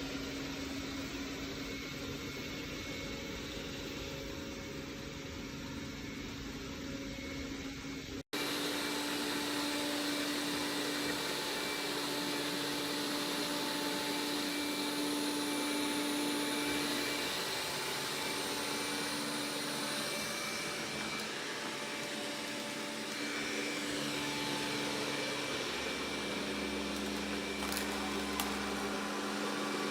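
Roborock S6 MaxV robot vacuum running: a steady whir of the suction fan with a faint hum, breaking off for an instant about eight seconds in, then carrying on.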